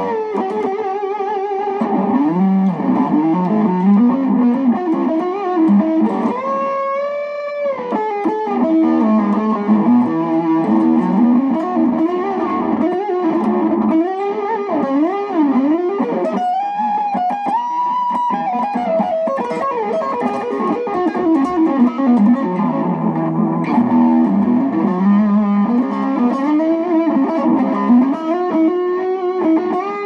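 Stratocaster electric guitar played through a Line 6 POD XT amp-modelling preset with a fat Strat tone: a single-note lead line with string bends and wide vibrato on held notes.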